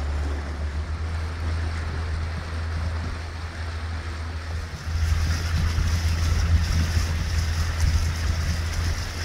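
A boat motor runs steadily under way as a low hum, with the rush of water and wind over it. About five seconds in it becomes louder, with a hiss on top.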